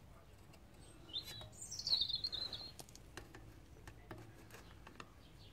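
A bird singing one short, high warbling phrase that starts high and drops in pitch, beginning about a second in and lasting just over a second. Faint clicks and taps come from the metal tin snips being handled against the torque arm.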